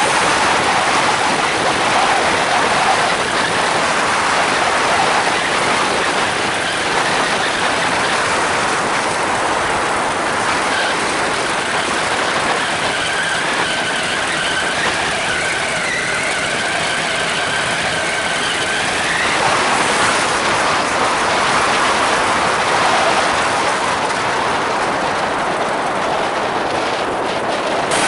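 Polini Thor 250 single-cylinder two-stroke engine running under power and driving the trike's pusher propeller, buried in a steady rush of wind on the microphone. About two-thirds of the way in, the engine note rises and the sound gets a little louder.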